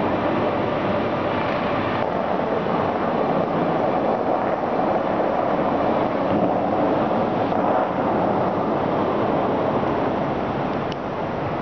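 Steady rushing roar of a large show fountain's water jets shooting up and falling back into the lake, easing off slightly near the end as the jets collapse into mist.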